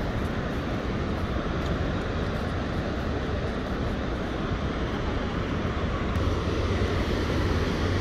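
The steady roar of Niagara Falls: a constant rushing noise with a deep rumble underneath, growing a little louder near the end.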